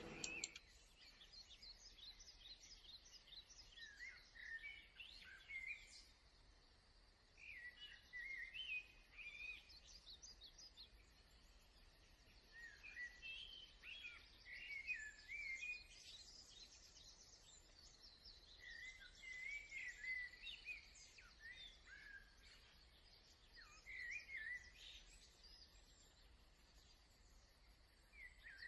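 Birds calling and singing faintly: many short, quick chirps and warbles, one after another, over a faint steady hiss.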